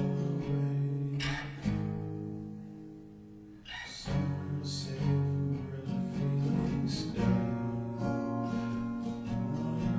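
Acoustic guitar strummed in chords; about two seconds in one chord is left to ring and fade, and strumming picks up again around the four-second mark.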